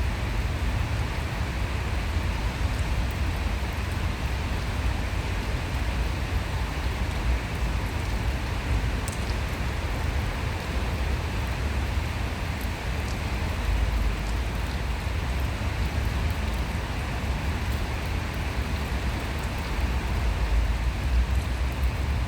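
Steady rushing of flowing stream water, with a fluttering low rumble underneath.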